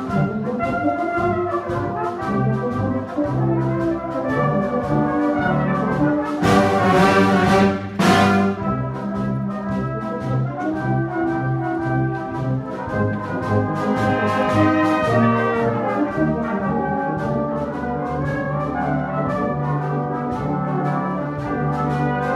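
A full brass band playing a march: cornets, tenor horns, euphoniums, trombones and tubas in many parts together over a steady beat, with a brighter, louder passage about a third of the way through.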